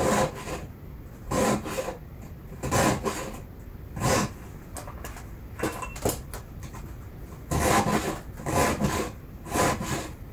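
Chainsaw chain being sharpened by hand with a file: about eight rasping strokes across the cutting teeth, unevenly spaced with short pauses between.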